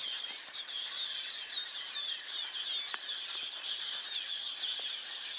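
Chorus of a large flock of hundreds of birds chattering at once: many overlapping high chirps and short calls in a dense, continuous mass.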